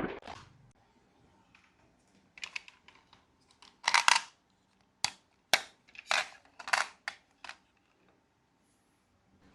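Marbles clicking and rattling along a marble run track: a series of sharp clicks and short rattles, busiest in the middle, then dying away.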